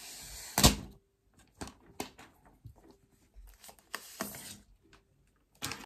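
Clear protective plastic film being peeled off the back of a new iPad: a hissing peel, a loud sharp crackle about half a second in, then scattered crinkles and crackles of the thin plastic.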